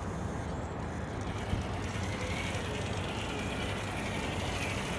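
Electric RC rock crawler's motor and gears whining faintly as it crawls along, the pitch rising and falling, over a steady low rumble.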